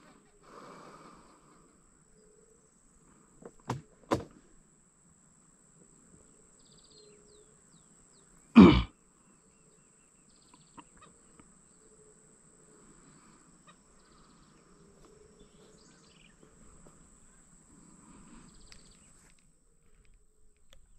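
Faint outdoor ambience of birds and insects with a thin steady high tone, broken by sharp knocks: two close together about four seconds in and a single much louder one about eight and a half seconds in.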